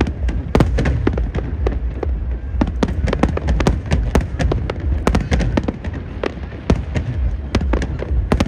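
Aerial fireworks display bursting: a rapid, irregular run of sharp bangs and crackles, several a second, over a steady low rumble.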